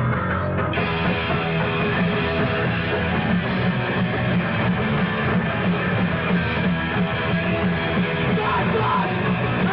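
Live hardcore punk band playing, electric guitar to the fore, in a rough, lo-fi 1980s concert recording. About a second in the sound turns brighter, as a new stretch of recording begins.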